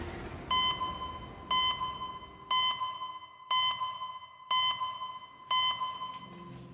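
Six short electronic beeps, evenly spaced about one a second, each a clear pitched tone with overtones: a ticking clock-counter sound effect marking the seconds.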